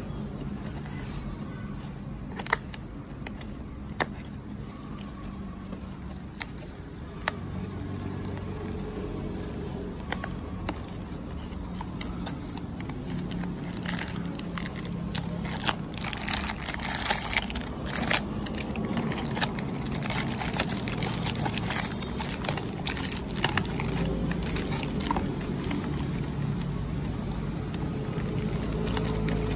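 Plastic candy wrappers crinkling and rustling, with scattered clicks and taps, as small wrapped gummy packets are handled and taken out of a cardboard box; the crinkling is busiest about halfway through. A steady low background hum runs underneath.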